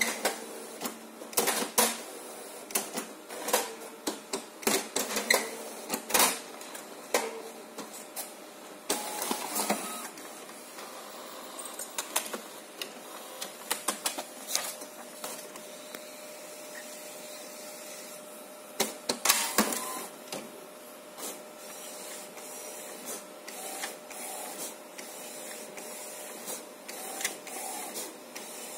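HP Designjet 130 wide-format inkjet printer running a printhead alignment print, with its carriage and paper feed mechanism working. Rapid clicks and knocks come thick at first, then settle into steadier mechanical running, with a burst of loud clattering about two-thirds of the way through.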